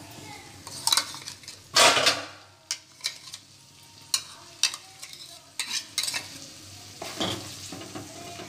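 Spoon stirring and scraping a thick masala paste in a metal pan, knocking against the pan about ten times, the loudest near two seconds in. A faint sizzle of the paste frying runs underneath as the ground spice paste is sautéed to cook off its raw smell.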